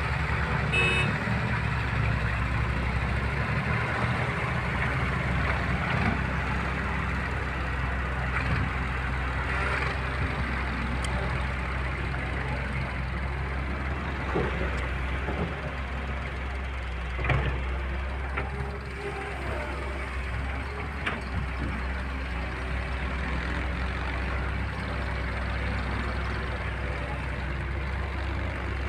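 Heavy diesel engines of an excavator and tractor running steadily while the excavator loads a tractor trolley, with a few short knocks, the loudest about 17 seconds in.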